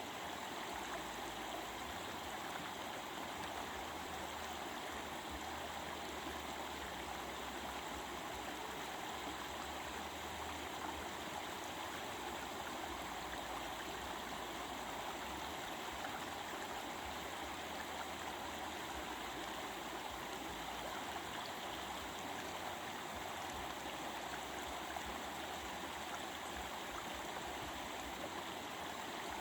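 Stream water rushing and babbling over rocks, a steady even flow that does not change.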